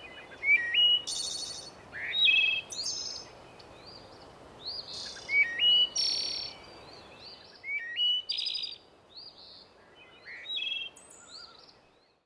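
Birds chirping and whistling, with several different short calls and rising whistles that recur in clusters every few seconds over a faint hiss. The sound fades out and cuts off just before the end.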